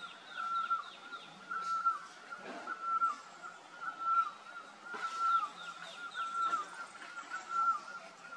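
A bird calls over and over, a short note that drops at its end, repeated evenly about every two-thirds of a second. A giant panda chews a bamboo shoot, with a louder crunch about two and a half seconds in and another about five seconds in.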